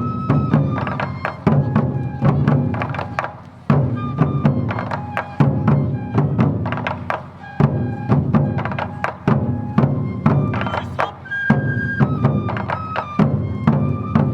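Awa Odori festival band playing its up-tempo two-beat rhythm: drums and a hand gong struck again and again under sustained melody tones from flute and shamisen.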